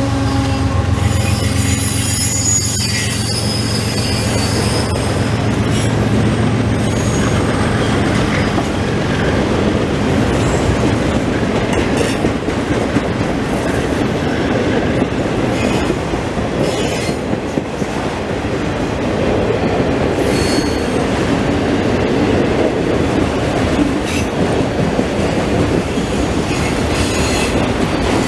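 Freight train cars rolling past close by: a steady rumble and clatter of wheels on the rails. High wheel squeal sounds in the first few seconds, and the locomotive's engine hum dies away about five seconds in.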